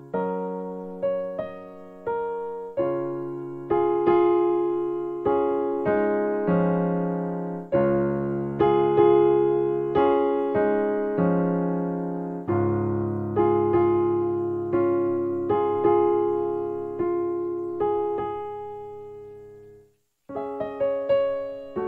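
Background piano music: slow chords and melody notes, each struck and left to die away. Near the end it fades out briefly, then starts again with quicker notes.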